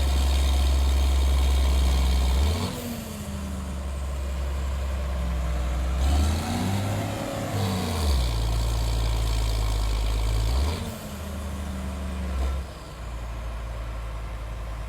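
An engine running with a steady low hum whose pitch and level shift abruptly several times, with brief rising-and-falling swells in its note.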